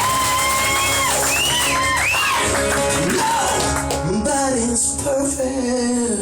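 Live rock band playing loudly, with a high lead line that bends up and down in pitch over the band.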